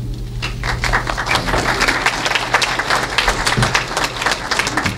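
Audience applauding: many hands clapping.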